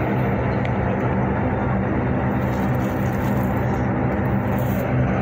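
Steady cabin drone of a moving bus: low engine hum under even road noise, unchanging throughout.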